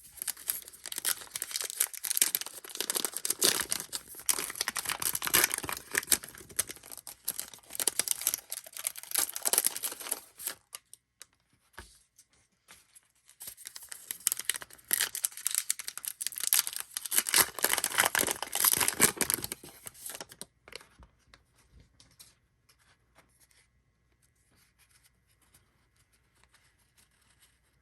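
Trading-card pack wrappers being torn open and crinkled by hand, in two long stretches of about ten and seven seconds with a short pause between, then only faint handling of the cards.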